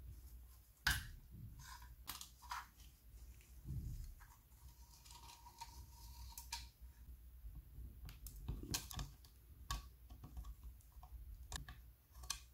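Handling noise of a sheet-metal lamp housing and its metal belt strap: scattered small clicks, knocks and rubbing as gloved hands work the strap out of its clip, with a sharp click about a second in and a faint squeak of metal sliding on metal near the middle.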